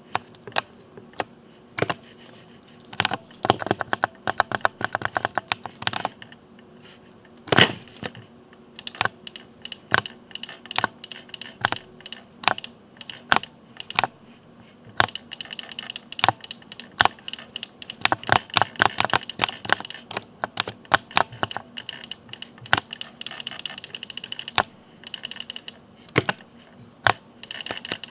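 Typing on a Ducky mechanical keyboard with Cherry MX Speed switches: irregular keystroke clacks broken by fast runs of keys, with one louder key strike about seven and a half seconds in.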